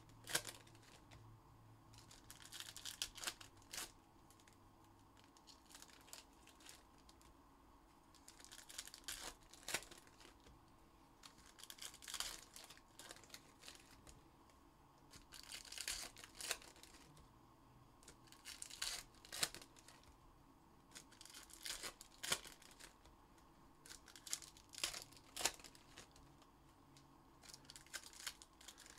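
Plastic and foil trading-card packaging being torn open and crinkled by hand, in faint bursts of crackling and ripping every few seconds with sharp clicks between.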